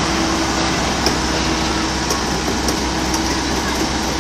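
Mini excavator's diesel engine running steadily, with a faint steady whine over a low hum.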